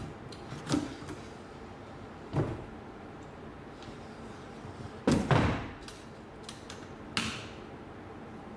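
A plywood pull-down first-aid cabinet swinging down on its wooden parallel arms and being pushed back up to the wall, giving a few separate wooden knocks and clunks. The loudest is a quick cluster of clunks a little past five seconds in.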